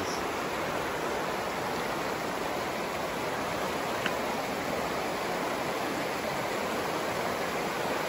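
Fast, shallow river rushing over a cobble bed in riffles: a steady, unbroken rush of water.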